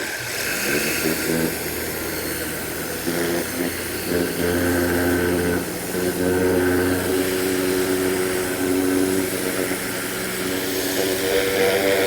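Ryobi 1600 PSI electric pressure washer running just after start-up: a steady motor-and-pump hum under the hiss of the water spray, its pitch and level shifting a few times.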